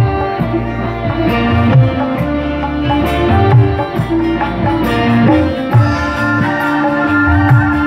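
Live dangdut band playing an instrumental passage: hand drums beating a rhythm with low notes that bend in pitch, under sustained melodic lines.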